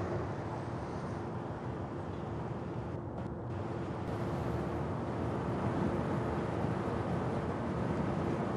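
Heavy trucks driving along a road: steady engine and tyre noise with a steady hum, a little louder as another truck passes close about halfway through.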